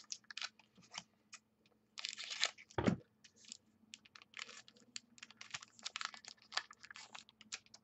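Football trading cards being handled and flipped through: a run of quick clicks and paper-like rustles, with one dull thump about three seconds in.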